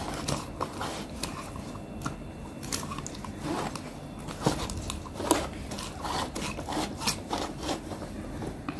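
A glass pickle jar being handled: its plastic screw lid is twisted tight and the jar is turned on a metal tray. This gives irregular rubbing and scraping with scattered light clicks.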